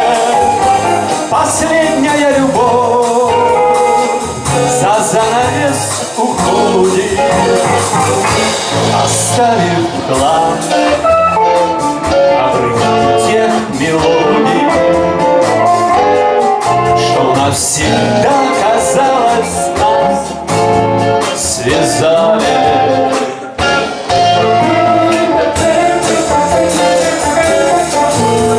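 Live blues band music: guitars, bass and drums, with a wavering lead melody above them.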